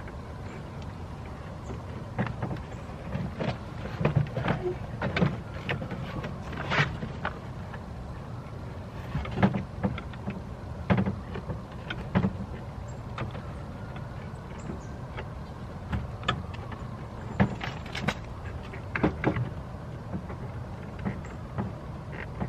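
Irregular clicks and clacks from a car door's handle and latch linkage being worked by hand, over a steady low hum.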